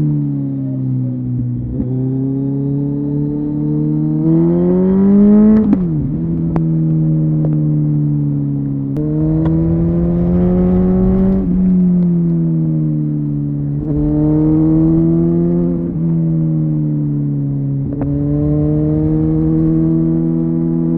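Kawasaki ZZR1400 (ZX-14R) inline-four motorcycle engine through a Delkevic exhaust, under way. Its note climbs in pitch and drops suddenly several times as the gears change.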